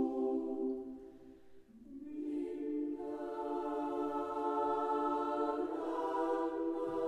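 Choir singing slow, sustained chords: one chord fades away about a second in, a new one swells in near two seconds, and the harmony shifts again near six seconds.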